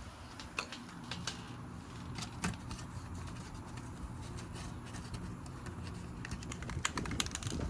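Wind rumbling on the microphone, with scattered light clicks and taps from handling things, a few more close together near the end.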